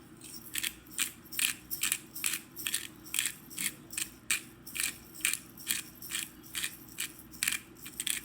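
Hand-twisted salt or pepper grinder grinding, a steady run of short rasping crunches about two a second.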